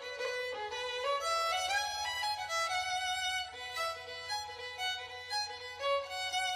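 Music: a violin playing a melody, moving from note to note with a couple of sliding notes about two seconds in.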